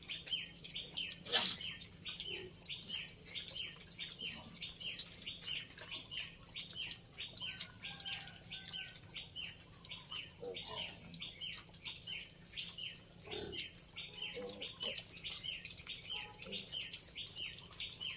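Steady high chirping, about four chirps a second, with native pig weanlings faintly grunting now and then. One loud, short, sharp sound comes about a second and a half in.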